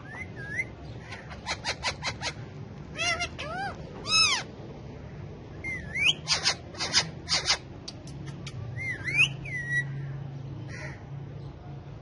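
Indian ringneck parakeets calling: bursts of short, harsh clicking squawks, a few arching screeches about three to four seconds in, and rising whistled glides near the middle and again towards the end.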